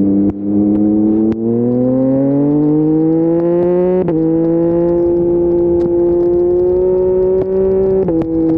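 Yamaha MT-09's 890 cc three-cylinder engine through an Akrapovic full-system exhaust, accelerating hard with the revs climbing. It shifts up about four seconds in and again near the end, each shift a sudden drop in pitch with no break in the sound.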